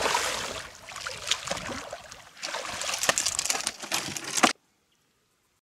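Hooked saratoga thrashing at the surface beside a canoe, water splashing and sloshing with many sharp slaps. The sound cuts off suddenly about four and a half seconds in.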